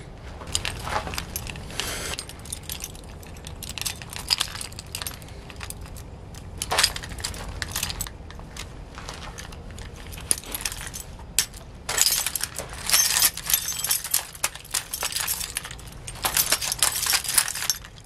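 A bunch of keys jangling and clinking as they are handled and hooked onto a forged steel belt ring, in irregular flurries that grow busiest in the second half.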